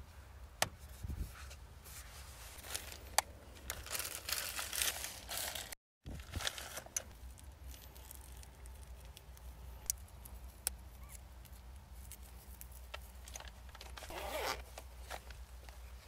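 Rustling and crinkling with scattered sharp clicks, as of things being handled, over a steady low hum; the sound cuts out for a moment about six seconds in.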